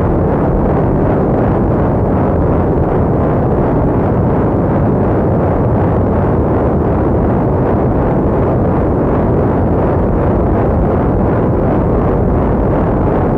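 Loud, steady wall of distorted noise from an experimental noise-music track, dark and muffled with little in the high end and no beat or melody.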